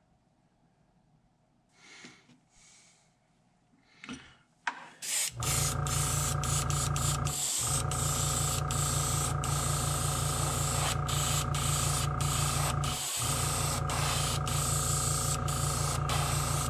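Airbrush spraying paint: a steady hiss of air starts about five seconds in and carries on with two brief breaks, after a few faint handling sounds.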